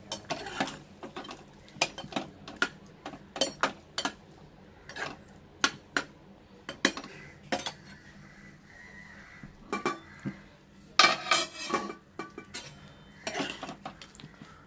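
Metal ladle stirring chopped fruit in jaggery syrup inside an open pressure cooker: irregular clinks and knocks of metal on metal, coming thickest about eleven seconds in.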